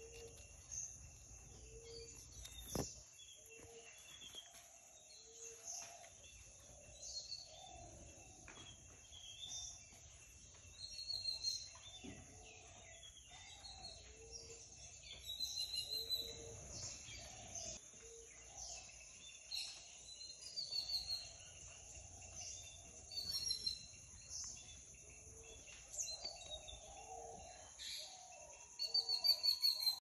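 Garden ambience: birds chirping and calling, over a steady high hiss, with a short low call repeating about every second and a half and a burst of rapid chirps near the end.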